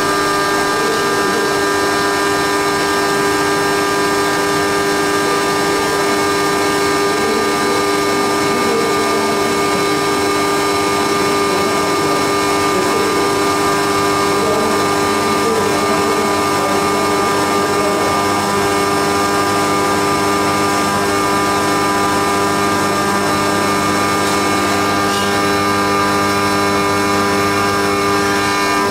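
Haas CNC milling machine running steadily while milling a cam on its fourth (rotary) axis: a constant machine whine made of many steady tones, with no let-up.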